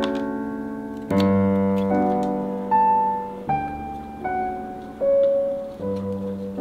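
Background piano music: a slow melody of single notes over sustained chords that change about once a second.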